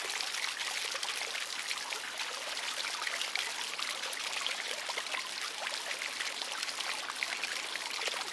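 Small stone street fountain, its metal spouts pouring water into the stone basin: a steady splashing and trickling.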